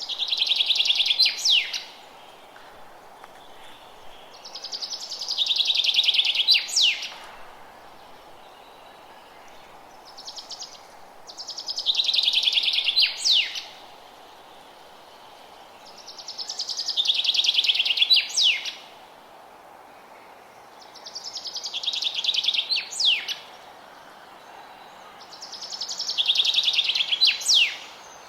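A songbird sings the same song six times, about every five seconds, over a steady faint hiss. Each song is a fast trill that grows louder over about two seconds and ends in a few quick, sharp downward-sweeping notes.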